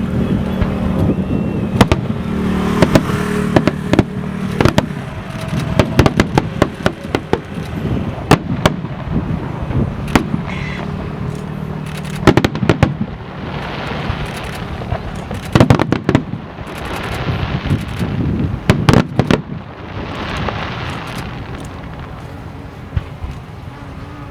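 Aerial fireworks shells bursting overhead: many sharp bangs at irregular intervals, some coming in quick runs, with patches of crackling hiss from crackle-effect shells spread through the display.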